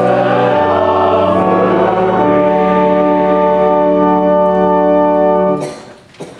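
Organ and singing voices, a piece of church music ending on a long held chord that stops about five and a half seconds in, the room's echo dying away after it. A faint knock follows near the end.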